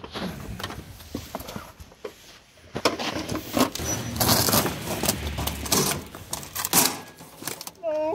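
Cardboard packing being pulled and shuffled against metal equipment cases: a busy run of rustling, scraping and light knocks. Near the end a short vocal sound, a person's voice.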